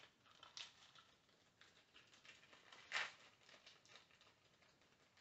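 Faint crinkling of a thin plastic bag being handled and pulled open, with a louder rustle about three seconds in.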